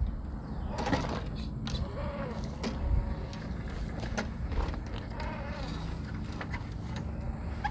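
Small brushless electric motor of an Axial Unimog 6x6 RC crawler (Hobbywing Quicrun Fusion) whining up and down in pitch as the truck is driven slowly. Scattered clicks and knocks come from the truck working over the course.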